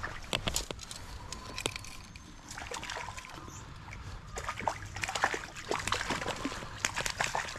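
Stream water splashing and sloshing at the bank as a hooked trout is brought in to a landing net: a run of short, sharp splashes that comes thicker in the second half.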